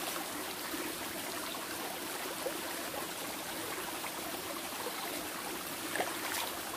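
Small rocky mountain stream flowing steadily over stones, with a light tap about six seconds in.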